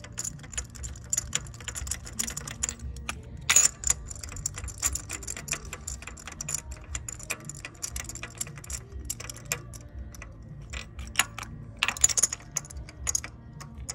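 Rapid, irregular metallic clicking and rattling from a spark plug socket and extension as spark plugs are hand-threaded into the cylinder head. Louder clatters come about four seconds in and again near the end.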